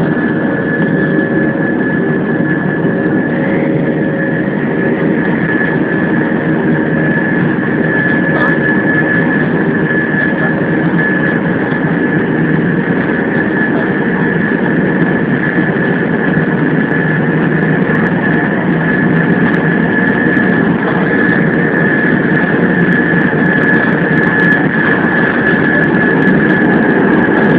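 Airbus A320 jet engines heard from inside the passenger cabin: a steady high-pitched whine over a broad engine rumble, growing slightly louder toward the end.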